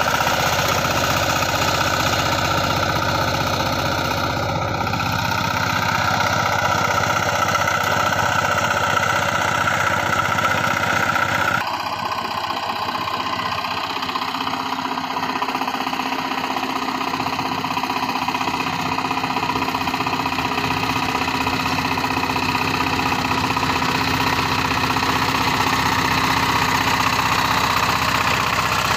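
Single-cylinder diesel engine of a power tiller running steadily under load as it drives cage wheels and a rotavator through a flooded paddy. About a third of the way in, the sound abruptly becomes a little quieter and more distant, then carries on steadily.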